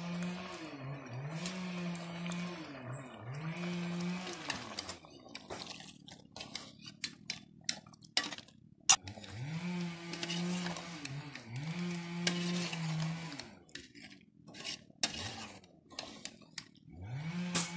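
A steel ladle clinks and scrapes against the metal of an aluminium cooking pot while curry is stirred, with one sharp clink about nine seconds in. A low hum that rises, holds and falls away repeats about once every second and a half, filling the stretches between the stirring.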